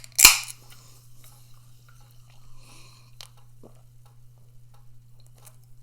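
A utensil stirring food in a microwave meal tray: a brief loud scrape about a quarter second in, then faint scattered clicks, over a steady low hum.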